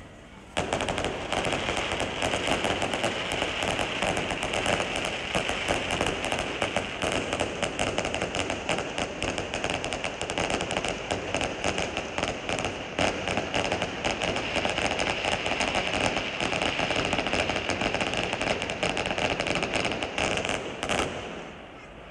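Fireworks display: a dense, rapid barrage of bangs and crackles that starts about half a second in and stops about a second before the end.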